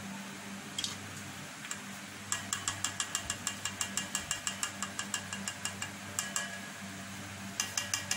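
Quick light metallic clicks against a stainless steel bowl of melted chocolate, about six a second for some four seconds, as a marshmallow pop is worked in the coating; a short burst of clicks comes again near the end.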